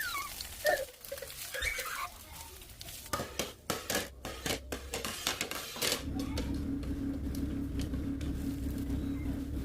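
Kitchen clatter of dishes and utensils, with scattered clicks and knocks. About six seconds in, an electric kitchen appliance's motor starts and runs with a steady hum.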